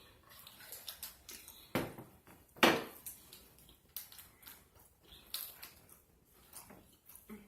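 Close-miked eating of a burger: wet chewing and lip smacking broken by a run of short, sharp clicks, the loudest about two and a half seconds in.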